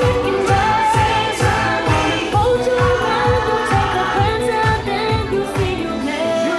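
Parade soundtrack: an upbeat pop song with singing over a steady kick-drum beat. The beat drops out near the end, leaving a held note.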